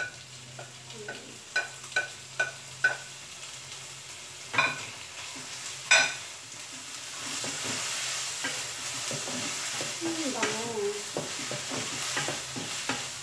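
A wooden spatula knocks against a plate about six times in the first six seconds as tuna is scraped off it, each knock short and ringing. From about seven seconds in, the tuna sizzles steadily in the frying pan while it is stirred with the spatula.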